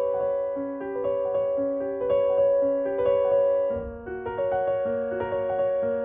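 Background piano music: a gentle, repeating pattern of held notes moving every half second or so.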